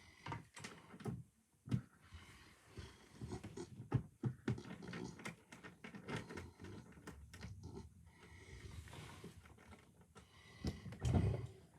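A run of irregular small clicks, taps and knocks of close hand-handling, with a louder low thump near the end.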